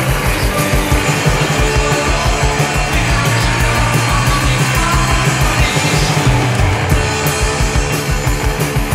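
Loud lo-fi garage punk rock recording with a fast, steady drum beat under a dense wall of band sound.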